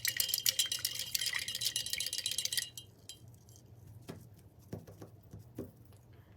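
Rapid clinking and rattling against glass, with a ringing tone, for about two and a half seconds, then stops; a few soft taps follow.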